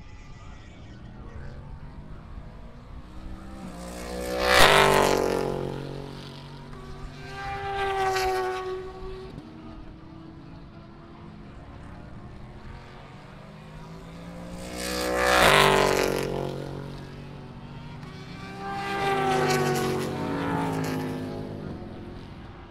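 Grand-Am race cars going past at speed. The engine sound swells and fades four times, its pitch dropping as each passes. The loudest pass is about four and a half seconds in, the others around eight, fifteen and twenty seconds in, with engine noise from farther round the track in between.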